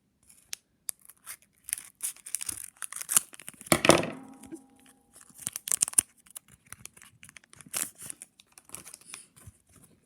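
Hockey card pack wrapper being torn open and crinkled: a run of short crackling rips, loudest about four seconds in.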